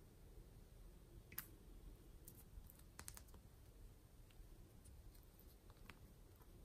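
Faint, scattered clicks and taps of a small plastic toy container being handled and pulled apart. There is a sharp click about a second and a half in, a quick cluster around three seconds, and a few lighter ticks later.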